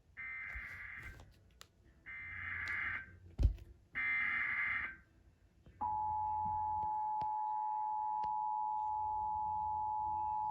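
Emergency Alert System test as broadcast: three one-second bursts of buzzing digital header data, then about six seconds in the steady two-tone EAS attention signal starts and holds. A single thump falls between the second and third bursts.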